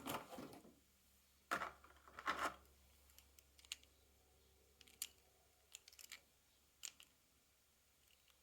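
Toy car packaging being handled and opened: two short plastic-and-cardboard rustles in the first few seconds, then faint scattered clicks and taps.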